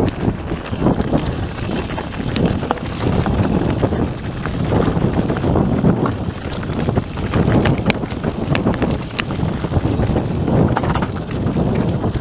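Wind rushing over the microphone and tyres rumbling over a dirt and gravel trail as a YT Industries Capra AL Comp full-suspension mountain bike descends fast, with many sharp clicks and rattles from the bike over the bumps.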